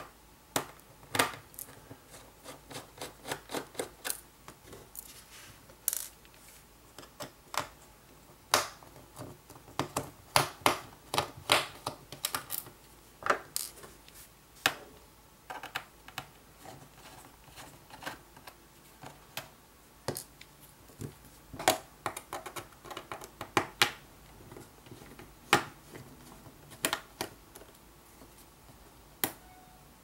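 Small Phillips screwdriver working out the tiny screws of a MacBook Pro's aluminium bottom case: irregular light metallic clicks and ticks, several a second in clusters, as the driver tip works the screws and the small screws are handled against the case and desk.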